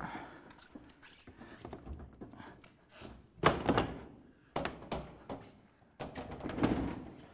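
Wooden sauna wall panel being knocked and pushed into place: a series of wooden knocks and thunks, the loudest about three and a half seconds in, with a cluster of further knocks near the end.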